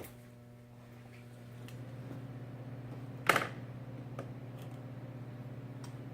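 Small tools and hub parts handled on a workbench: a few light clicks and one sharper, louder clack about three seconds in, over a steady low hum.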